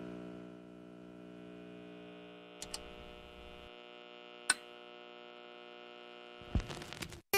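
Steady electronic hum made of many held tones, with a few faint clicks partway through. Near the end it gives way to a few thumps, and then acoustic guitar music starts.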